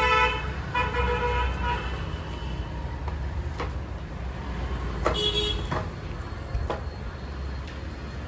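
Vehicle horns honking in short steady blasts: one right at the start, another about a second in, and a third around five seconds in. A constant low traffic rumble runs underneath, with a few light clicks.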